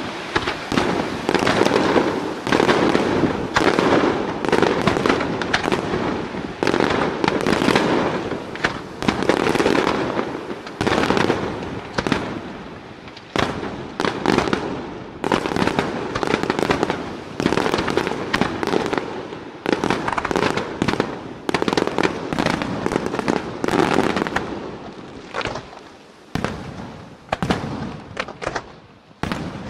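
Aerial firework shells bursting in a rapid, overlapping run of bangs, thinning out to fewer, more widely spaced reports in the last few seconds.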